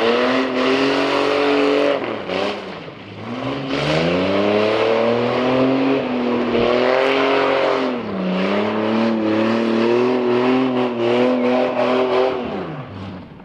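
Car engine accelerating hard through the gears: the pitch climbs and holds, drops sharply at gear changes about two seconds in and about eight seconds in, climbs again, then falls away as the throttle comes off near the end.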